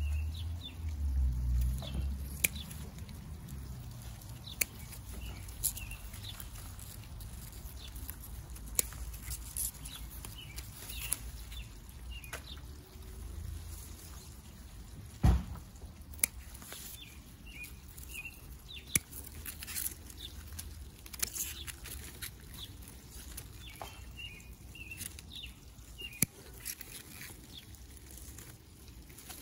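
Pea vines rustling, with scattered sharp clicks and snaps as pea pods are picked and snipped with scissors. Small birds chirp faintly in the background.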